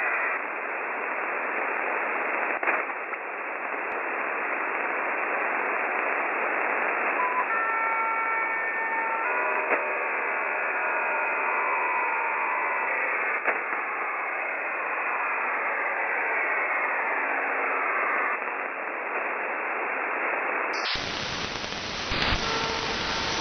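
Shortwave radio static: a steady hiss from a receiver tuned to 4625 kHz, the UVB-76 buzzer frequency, with a few brief steady whistle tones about a third of the way in. Near the end the hiss suddenly becomes fuller and deeper, as if the receiver's filter were widened.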